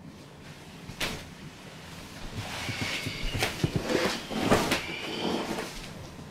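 A person sitting down in a padded office chair close to the microphone: a sharp knock about a second in, then clothing rustle and knocks from the chair, loudest about two-thirds of the way through.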